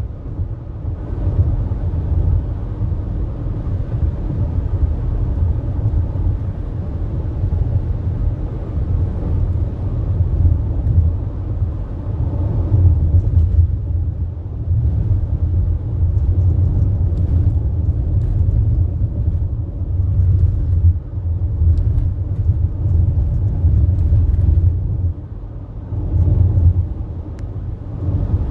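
Car driving on a paved two-lane highway, heard from inside the cabin: a steady low rumble of tyres on the road and the engine running.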